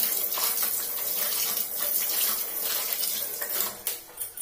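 Tap water running and splashing into a stainless steel sink as a plastic comb is rinsed and scrubbed with a toothbrush under the stream. The flow stops near the end.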